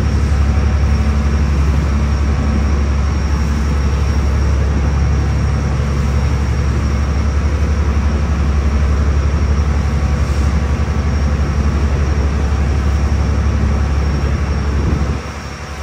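Ferry engines running with a steady, loud, low drone and hum. The deep hum cuts off suddenly near the end, leaving a quieter rumble.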